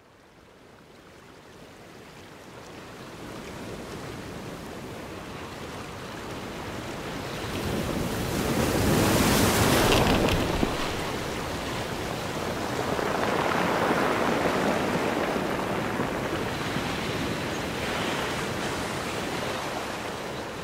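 Waves washing in, fading in from near silence and then swelling and easing in slow surges, the loudest about nine seconds in.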